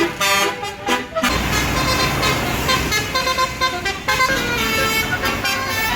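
Basuri telolet horn on a tour bus playing a tune in quick changing notes, with a low engine rumble joining about a second in.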